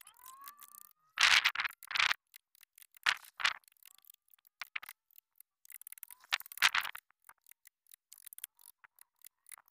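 Pencil scratching across a wooden board in a series of short strokes, loudest about a second in and again around six to seven seconds in.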